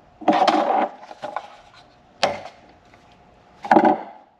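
Handling noises from a thermostat being worked on at the wall: a short burst of rubbing and knocking, a sharp click about two seconds in, and another knock near the end.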